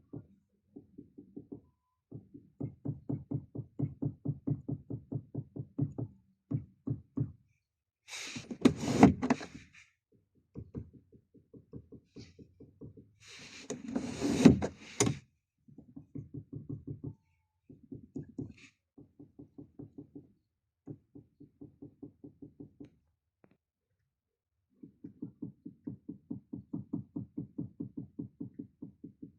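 Seat belt height adjuster in a Chery Tiggo 7 Pro knocking: rapid, evenly spaced knocks, several a second, in runs of a few seconds with short pauses between them. This is a rattle fault in the adjuster mechanism. Twice, a few seconds apart, a louder noisy burst sounds over the knocking.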